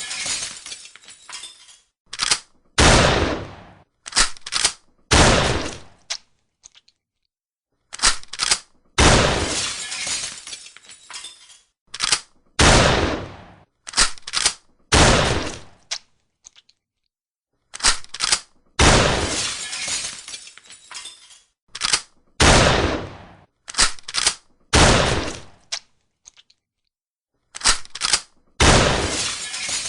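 Shotgun firing several times, each shot ringing off in a long fading tail, with sharp reload strokes between the shots. The same group of shots and reloads repeats about every ten seconds, with short silences between groups.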